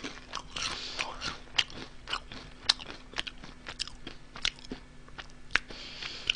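A person chewing Honey Butter Chip potato chips: a run of irregular, crisp crunches, a few each second.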